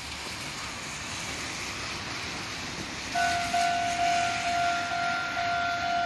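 A Japanese railway level crossing's warning bell starts ringing about three seconds in, a steady two-note clang repeating about twice a second, warning of an approaching train. Before it, a steady hiss.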